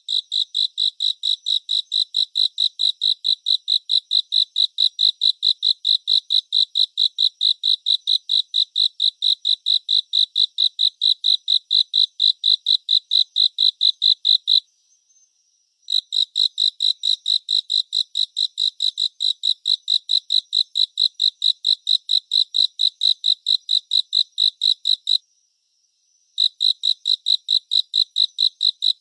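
Crickets chirping: one loud cricket gives high-pitched chirps in a steady rhythm of about three to four a second, stopping twice for about a second, over a fainter, steady, higher trill from another cricket.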